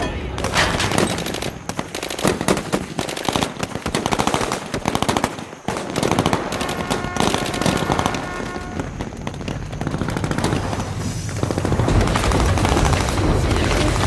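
Sustained machine-gun fire mixed with rifle shots: rapid cracks running almost without a break, with a brief lull a little over five seconds in.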